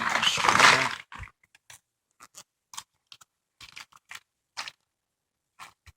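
Handling noise from a soft fishing tackle bag and its plastic bait packs: about a second of loud rustling and crinkling, then scattered small clicks and taps.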